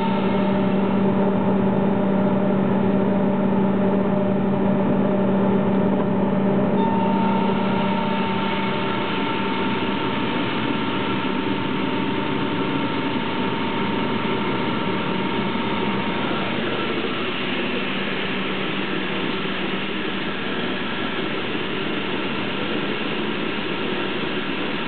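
Atlas Copco ZT 75 oil-free rotary tooth air compressor running steadily on a test run, a dense machine hum with a hiss over it. About seven seconds in its tone shifts: a low hum fades away while a higher whine comes in and dies out some seconds later.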